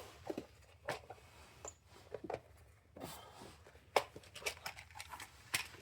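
Scattered light clicks and rattles of small parts being handled while picking through an O-ring assortment, with the sharpest clicks about a second in, near four seconds and near the end.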